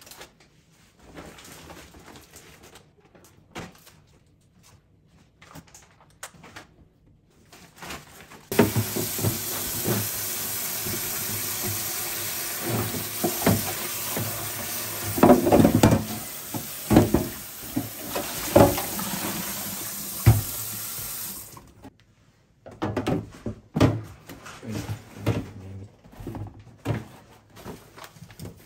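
Kitchen tap running into a plastic fridge drawer being washed by hand in a steel sink: a steady rush of water starts about a third of the way in and stops suddenly about two-thirds in, with splashes and knocks as the drawer is handled. Before and after the water, only light knocks of plastic being handled.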